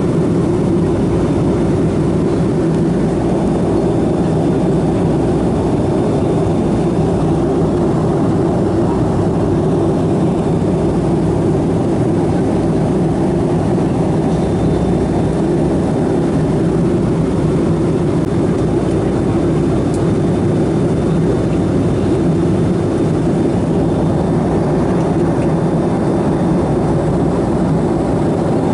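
Steady cabin noise inside a Boeing 757-200 in flight: jet engine and airflow noise as a deep, even rush. A faint thin whine joins about halfway through.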